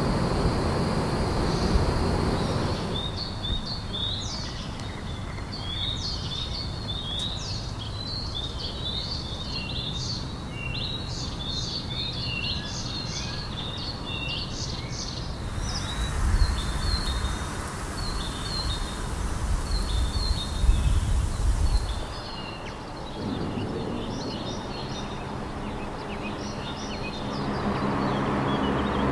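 Small birds chirping busily, many short high chirps overlapping, over a low outdoor rumble that swells for a few seconds before the chirping stops.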